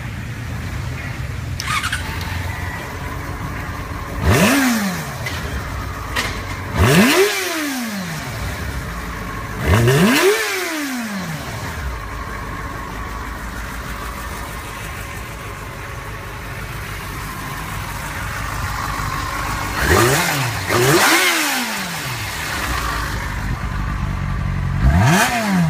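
2006 Yamaha FZ6N's 600 cc inline-four idling, with about six quick throttle blips, each rising in pitch and falling back to idle. Three come in the first half and three from about three-quarters of the way in.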